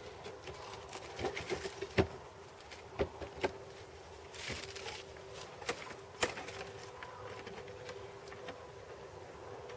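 A wooden bee-swarm trap box knocking and scraping against a pine trunk and branches as it is hauled up on a rope: a string of irregular sharp knocks, with the loudest about two seconds in, and short rustling scrapes. A faint steady hum lies underneath.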